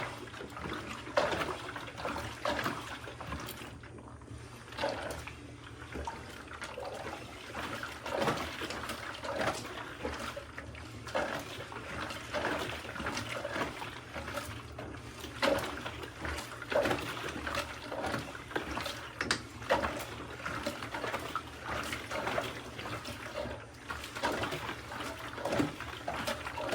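Water and laundry sloshing inside the drum of a hand-cranked WonderWash portable washer as it is turned, swelling and falling roughly once a second.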